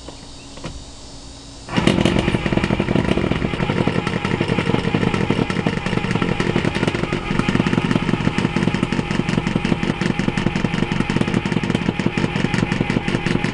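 Toastmaster electric can opener running as it cuts around a can lid. It starts suddenly about two seconds in and runs on as a loud, steady motor buzz with a fast, even rattle, a lot of noise that the owner puts down to worn cutting teeth.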